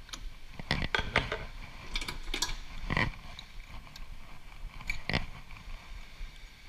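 Irregular metal clinks and knocks of a spanner and hands working on a metal lathe's tool post and compound-slide nuts, with the lathe not running; the loudest knocks come about three and five seconds in.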